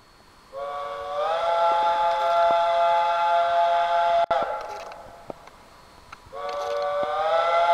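Steam locomotive chime whistle blowing two long blasts, each a chord of several tones that bends up in pitch just after it opens. The first cuts off sharply about four seconds in and echoes away; the second starts near the end.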